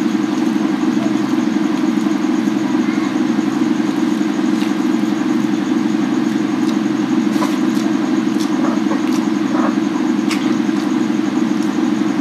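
A steady, unbroken motor-like drone, with a few faint light clicks of fingers against steel plates.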